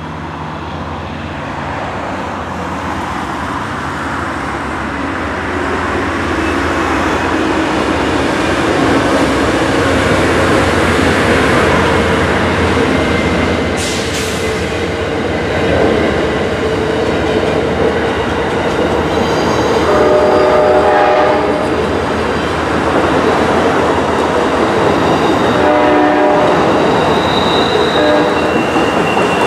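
Amtrak Silver Meteor passenger train rolling past over a railway underpass bridge: the steady rumble and wheel noise of its cars builds over the first several seconds and then holds. Two brief pitched tones sound about twenty and twenty-six seconds in.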